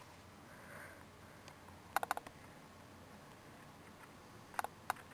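Quiet room tone broken by a few short, sharp clicks: a quick cluster of three or four about two seconds in, and two more near the end.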